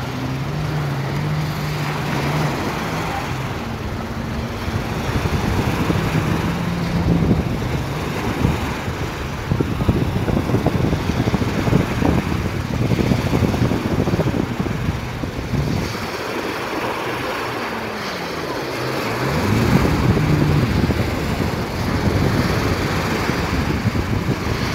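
Jet ski engines running close by, with the pitch dipping and then rising again about three quarters of the way through as the throttle changes. Wind buffets the microphone.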